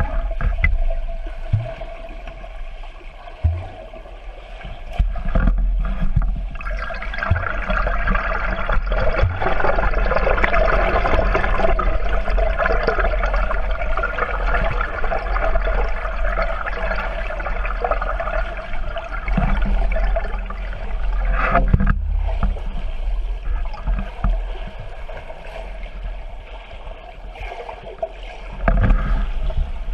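Water churning as heard underwater in a swimming pool: swimmers' arm strokes and kicks stirring the water and trailing bubbles, muffled through the submerged camera, with occasional low knocks. It swells in the middle and eases off for a few seconds near the end.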